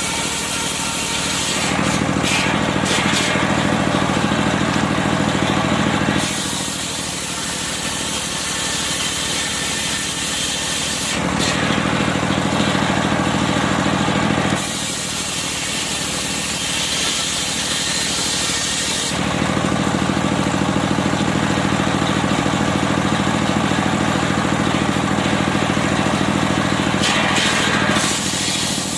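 Engine-driven circular sawmill running without a break. Its sound switches back and forth every few seconds between a heavy, low engine-laden tone and a lighter, higher tone, as the saw passes through the medang log and comes back.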